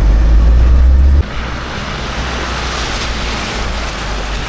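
A 4x4 driving on a rough track with a loud low rumble. About a second in it cuts off abruptly, giving way to a steadier, quieter rushing hiss.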